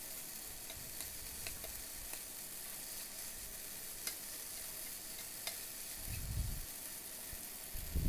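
Paneer pieces in a thick, drying gravy sizzling in a nonstick frying pan as a slotted spatula stirs them, with a few light clicks of the spatula on the pan. The gravy is being fried down until it is absorbed and the pieces separate. Two dull knocks come about six seconds in and near the end.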